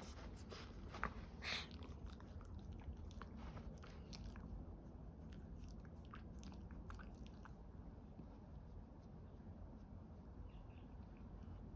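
Small senior dog making soft mouth noises, chewing and smacking, heard as a run of faint clicks with two louder ones about a second in, growing quieter after about eight seconds.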